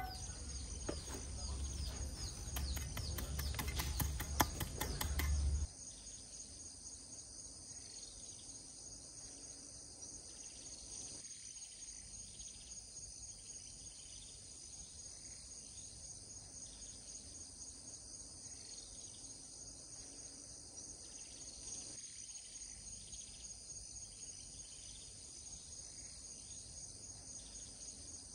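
Steady high-pitched insect chorus with a fast, even pulsing trill. For about the first six seconds a low rumble with scattered clicks lies over it, then stops abruptly.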